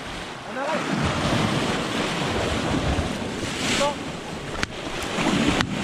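Sea waves surging and breaking against a rocky shore, a steady rushing wash with swells in level, with wind buffeting the microphone.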